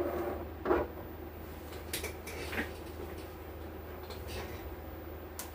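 A few light knocks and clicks of hands and test probes handling the mixer's circuit board, over a steady low mains hum.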